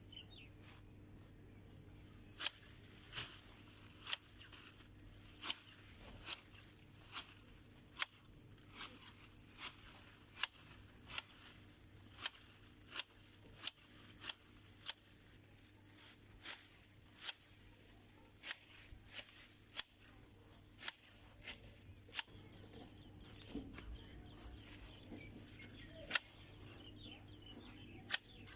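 Manual hedge shears snipping through creeper leaves and thin twigs: a crisp blade snip roughly once a second, in an uneven rhythm, about two dozen cuts in all.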